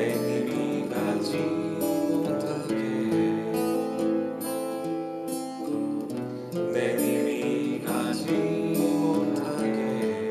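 Steel-string Crafter acoustic guitar playing a melodic solo: single picked notes carrying the tune over ringing chord tones.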